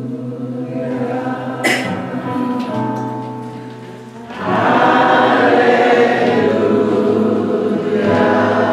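Gospel song sung in church: long held notes open it, then about four and a half seconds in a choir and congregation come in much louder, singing together.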